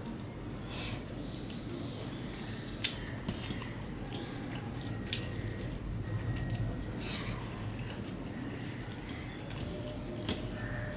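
Wet squishing and ticking of a bare hand mixing rice with fish curry and greens on a steel plate, with irregular small clicks throughout.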